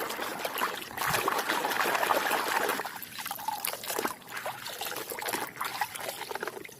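Water trickling and splashing as a muddy toy is washed by hand, with scattered small clicks and knocks. Louder for the first few seconds, then quieter.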